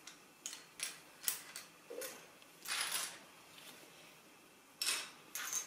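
Plastic Lego bricks clicking and clattering as pieces are handled and pressed onto a model: a string of sharp clicks, with a longer rattle near the middle.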